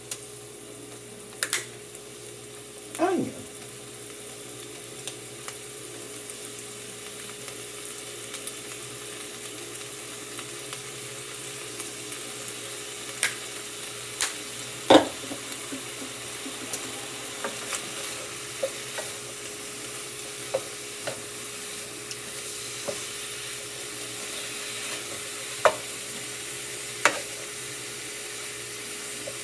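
Meat searing in a frying pan, a steady sizzle that slowly grows louder, with scattered clicks and knocks of a wooden spoon stirring against the pan.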